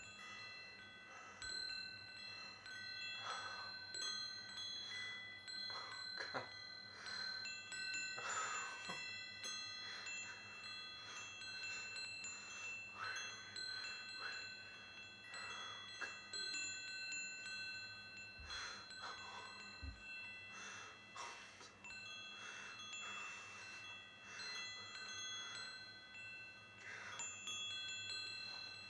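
Chimes ringing softly: many high, clear tones overlap and hang on for seconds, with a fresh soft strike every few seconds.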